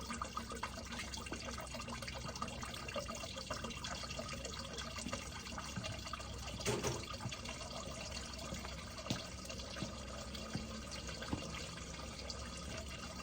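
Engine oil draining from the open drain-plug hole of a Can-Am Spyder F3 into a drain pan: a steady trickle and splash, with a few small knocks. The dipstick is out so the oil drains faster.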